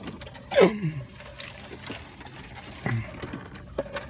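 Quiet eating sounds of people chewing fast-food burgers, with faint small mouth and wrapper clicks over a low steady hum, broken by two short wordless voice sounds, one about half a second in that falls in pitch and one about three seconds in.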